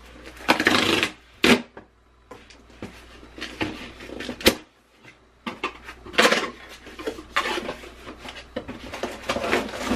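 A small cardboard box being handled and opened by hand: irregular scraping and rustling of the cardboard flaps, with two sharp knocks, about one and a half seconds and four and a half seconds in.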